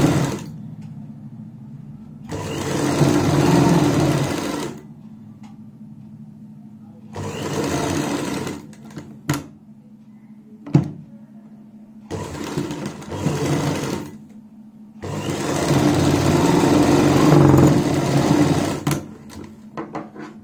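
Black domestic straight-stitch sewing machine stitching a seam in four runs of a couple of seconds each, with short pauses between them. In one pause there are a couple of sharp clicks.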